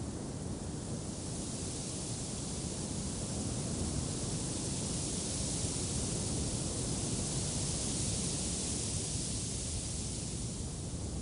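Wind rushing in a steady hiss that swells for several seconds and then dies back down.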